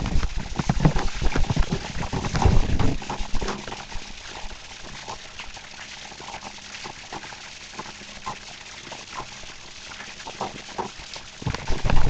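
Heavy rain falling steadily, with scattered taps of drops throughout. Louder low bumps in the first three seconds or so, after which the rain continues more evenly.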